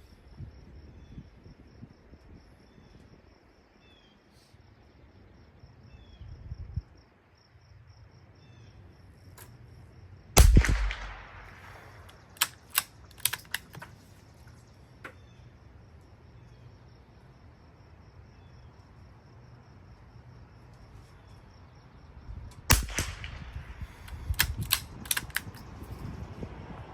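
.22 LR rimfire rifle firing two loud shots about twelve seconds apart, the first about ten seconds in and the second near the end. Each shot is followed by a few lighter, sharp cracks and clicks.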